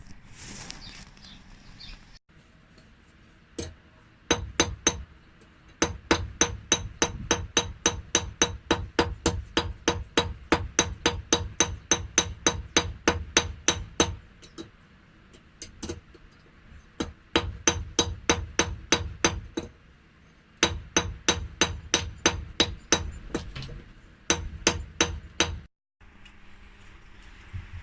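Hand hammer striking hot car-spring steel on an anvil in quick runs of about three blows a second, each blow ringing, with short pauses between runs as the bar is forged to shape.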